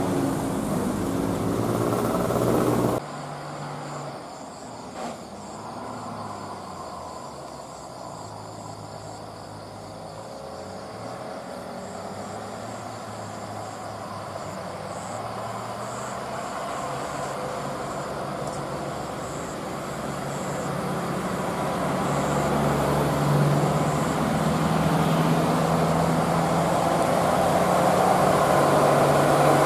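A bus engine running and drawing closer, growing steadily louder over the last two-thirds. A louder sound cuts off abruptly about three seconds in.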